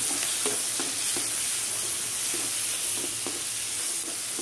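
Sliced onions sizzling steadily in hot butter and ghee in a kadhai, with a spatula stirring them in repeated short strokes, as they start to sauté.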